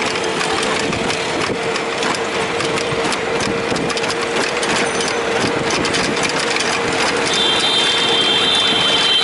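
Small engine of a motorized rickshaw running steadily while under way, a constant drone over road and traffic noise. A high, steady whine joins for the last two seconds or so.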